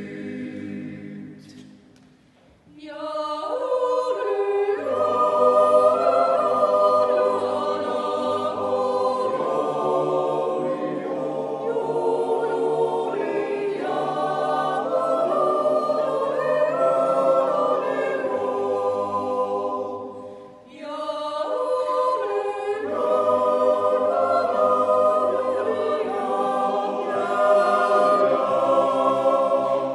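Mixed Swiss yodel choir of men's and women's voices singing a cappella in close harmony. The singing breaks off briefly about two seconds in and again about twenty seconds in, each time starting a new phrase.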